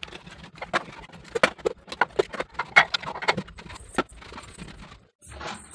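Dry waste and grit being scooped up by hand off a rough floor and dropped into a bowl, heard as irregular scrapes and small clicks.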